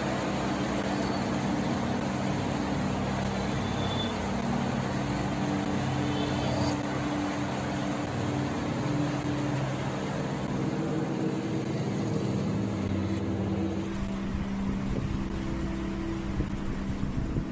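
Electric fan running: a steady motor hum with air whooshing, the hum's pitch shifting slightly partway through.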